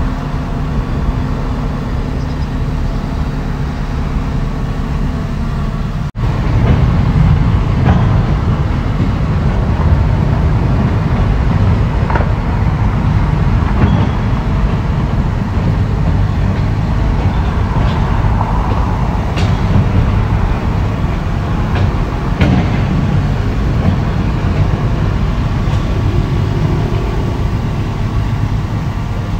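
Heavy excavator diesel engine running, with a few short metallic clanks. About six seconds in the sound cuts abruptly from a steady, even hum to louder, rougher engine noise.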